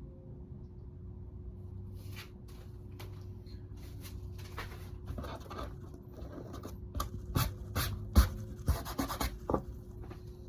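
Irregular scratching and rubbing of hand work, with several sharp knocks near the end, over a steady hum.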